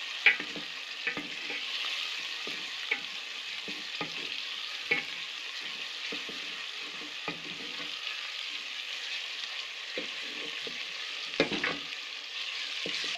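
Onions, garlic, ginger and tomatoes sizzling in oil in a metal pot while a wooden spoon stirs them, knocking and scraping against the pot every second or so. There is a sharp knock right at the start and a cluster of louder knocks about eleven seconds in.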